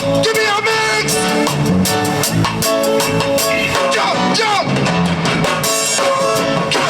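Live band music with drums, guitar and some singing, at a steady loud level.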